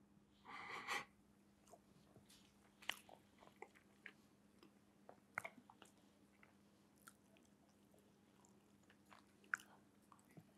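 Near silence from a large seated crowd taking tea: scattered faint clicks and small handling noises over a low steady hum, with a brief louder rustle about half a second in.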